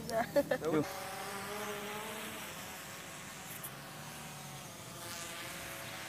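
DJI Phantom 3 quadcopter flying high overhead, its propellers giving a steady buzzing hum. A short burst of voice comes in the first second.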